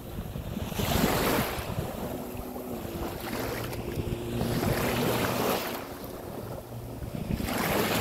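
Small sea waves washing onto a sandy beach, the wash swelling about every three seconds, with wind buffeting the microphone.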